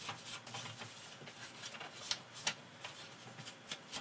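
Ink blending brush dabbed and scrubbed along the edges of a paper envelope, with paper rustling: a run of irregular soft scratches and light taps.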